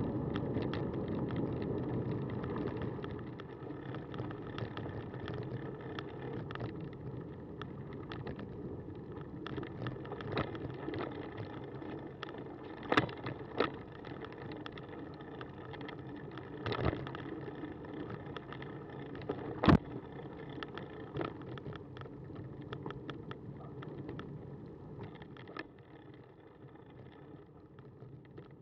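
Cannondale bicycle rolling along a wet gravel and dirt path: a steady low tyre rumble with constant small rattles and clicks from the bike over the rough surface. A few sharp knocks from bigger bumps come around the middle, and the rumble eases off near the end.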